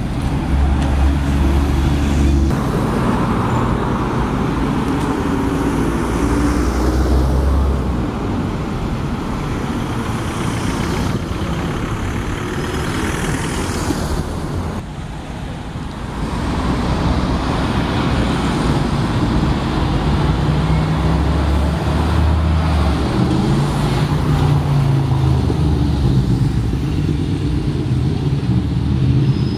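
Single-deck diesel buses running in town street traffic: a low engine hum with tyre and traffic noise. The sound changes abruptly several times.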